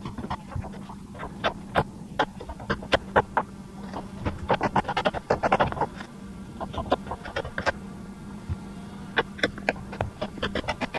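Poultry clucking: a run of short, sharp clucks, thickest about halfway through and again near the end, over a steady low hum.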